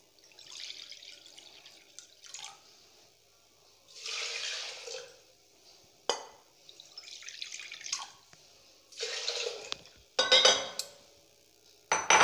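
Water poured in several short pours into an aluminium pressure cooker holding dal, splashing against the pot, with a couple of sharp clinks between pours.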